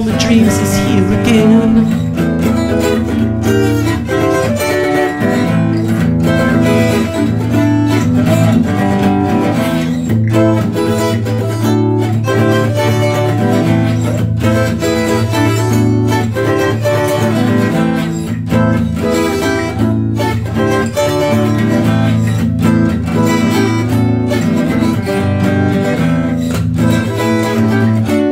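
Acoustic guitar strummed in a steady rhythm through a chord progression: an instrumental passage with no singing.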